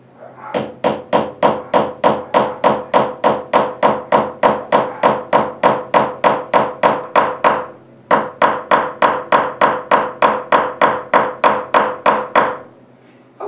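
Cross-peen hammer striking a copper washer on a steel bench block, a steady run of about three ringing metallic blows a second, texturing the washer with radial lines. The blows break off briefly about eight seconds in, then resume and stop about a second before the end.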